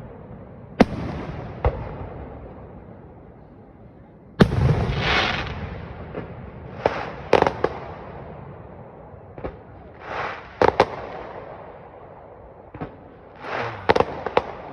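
Fireworks display: a series of aerial shell bursts, a dozen or so sharp bangs at uneven intervals, the loudest about four and a half seconds in, several followed by a longer rolling tail, with quick pairs of reports in the middle and near the end.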